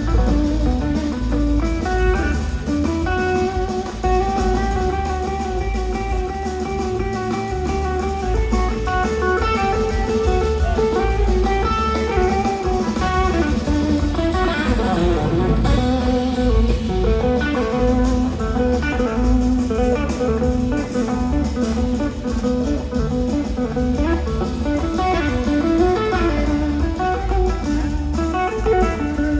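Live band jam led by an electric guitar soloing in gliding, bending lines over bass guitar, keyboards and drums.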